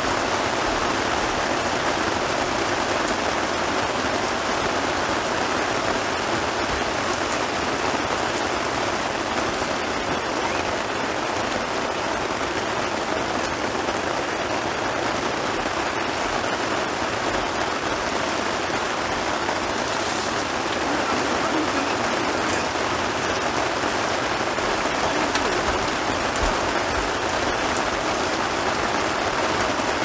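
Rain from a sudden summer shower falling steadily, an even hiss that holds throughout.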